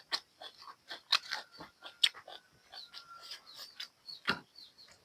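Close-up eating sounds: wet chewing and smacking of buffalo curry and rice, with irregular small clicks and crunches several times a second.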